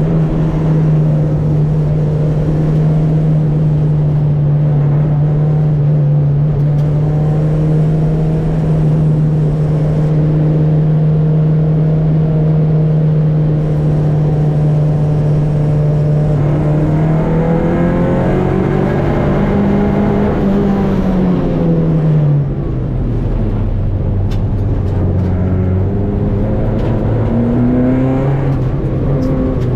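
Renault 5 GT Turbo rally car's engine heard from inside the cabin, held at steady revs for a long stretch. About two-thirds through, the revs drop and climb again through gear changes. They then fall and build once more near the end.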